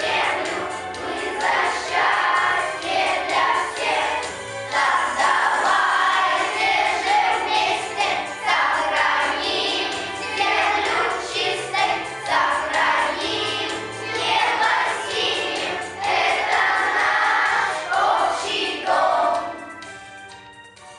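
A group of children singing a song together over instrumental backing music. The music fades out near the end.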